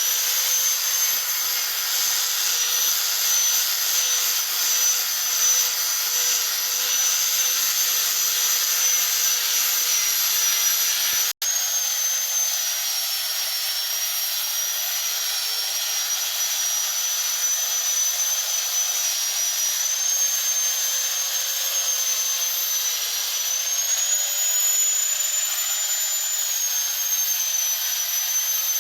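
Electric grinder running steadily with a high whine, its pitch shifting slightly now and then; a brief cut in the sound about eleven seconds in.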